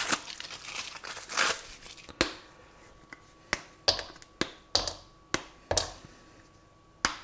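Foil wrapper of a dark chocolate bar crinkling as it is peeled off, then squares of the chocolate snapped off one by one, about eight sharp snaps roughly half a second apart.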